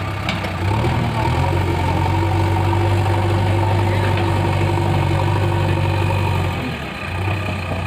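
JCB 3DX backhoe loader's diesel engine running. It revs up about a second in, holds steady at the higher revs, then drops back toward idle near the end.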